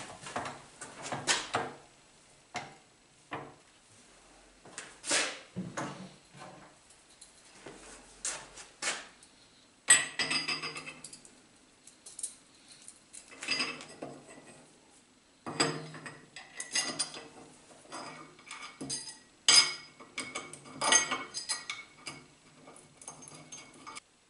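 Small steel parts clinking and knocking irregularly as a gear is handled and fitted onto a shaper's mounting arbor. The sharpest knocks come about ten seconds in and twice more in the second half.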